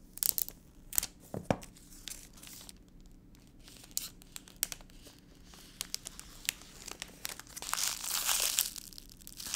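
Clear plastic shrink-wrap being picked at, torn and peeled off a new iPhone box, with scattered sharp crackles and a longer stretch of crinkling near the end as the loose film is handled.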